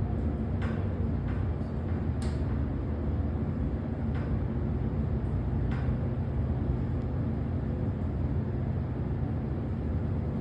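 Original Minnesota hydraulic passenger elevator car travelling down: a steady low rumble and hum inside the cab, with a few faint clicks in the first six seconds. The descent is always super slow on this car.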